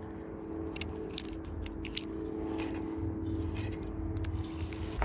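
A steady motor hum, like a distant engine, with a low rumble beneath it and a few light clicks scattered through; the hum cuts off abruptly at the end.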